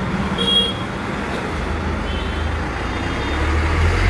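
School bus engine running at low speed as the bus draws up close, over passing road traffic. Its low rumble grows louder toward the end.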